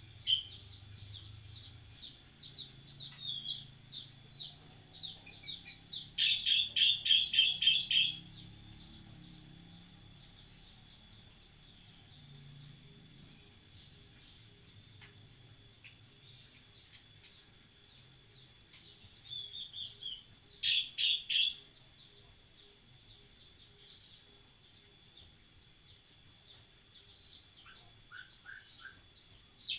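Small birds chirping in quick runs of sharp, high chirps. The loudest runs come about six to eight seconds in and again around twenty-one seconds in.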